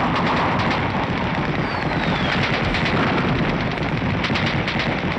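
Rapid machine-gun fire in a dense din of battle gunfire, with a short falling whistle about two seconds in.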